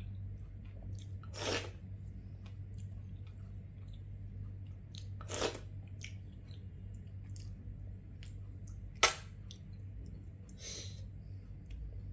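Person chewing food, with small mouth clicks and four short hissing bursts spread through, the sharpest about nine seconds in, over a steady low hum.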